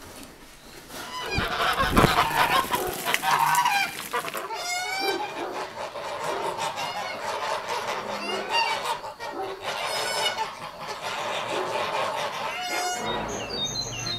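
A flock of white domestic geese honking, with many overlapping calls in quick succession. A few loud knocks come about two seconds in.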